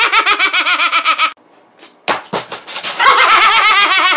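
A man laughing hard in rapid, high-pitched "ha-ha-ha" bursts, two long bouts with a short break about a second in.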